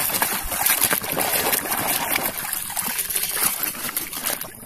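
Muddy water splashing and sloshing as a hand swishes a plastic toy van back and forth to wash the mud off it, with a short break near the end.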